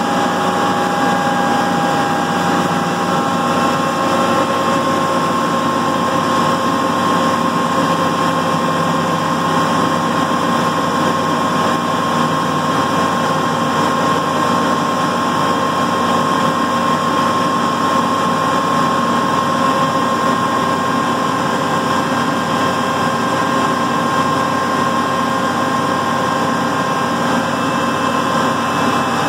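Hydrostatic test stand running a Case IH 6088/7088 combine hydrostatic pump and two-speed hydrostatic motor during a pressure test: a loud, steady machine drone with a steady whine over it.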